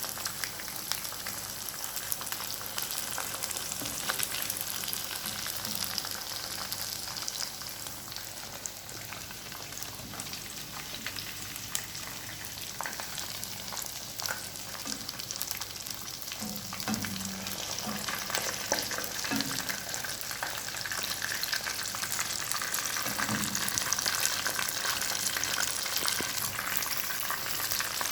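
Chicken pieces frying in hot oil: a steady sizzle and crackle of bubbling oil that grows a little louder near the end.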